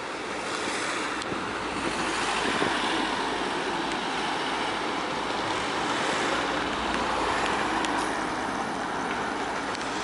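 Road traffic: a car driving on the road, a steady rushing of engine and tyres that swells about a second in and then holds.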